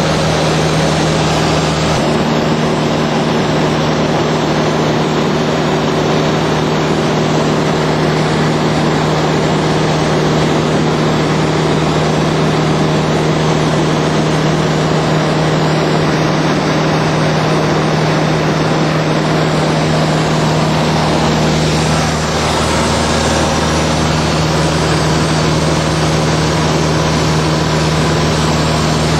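Cessna light aircraft's piston engine and propeller heard from inside the cabin in steady flight: a constant low drone over a loud rush of air.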